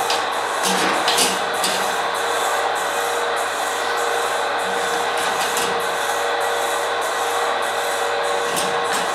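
A steady rasping, rubbing mechanical noise with a faint hum underneath.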